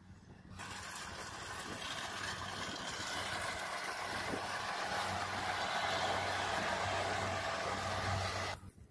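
Rice combine harvester working at close range: a steady engine hum under a dense, even whir of machinery. It starts abruptly about half a second in, grows slightly louder, and cuts off suddenly near the end.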